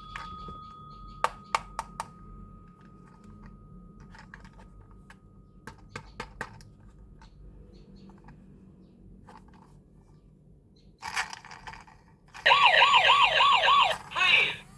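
Toy police car's electronic siren wailing loudly in a fast rising-and-falling warble, starting near the end. Before it, a few sharp plastic clicks of the toy being handled and a fading ringing tone.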